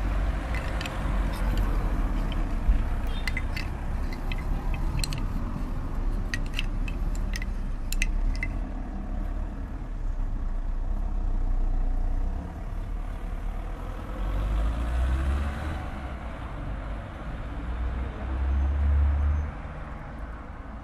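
Road traffic: cars running and passing along a street, a low rumble that swells twice near the end. A scatter of light clicks and jingles sounds through the first half.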